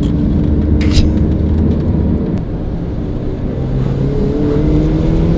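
Mazda MX-5 (NA) four-cylinder engine running, with a sharp click about a second in and the engine note rising in the second half as it is revved. It is being tried after refuelling to see whether the bad misfire has gone, which the owner puts down to the car maybe having been low on fuel.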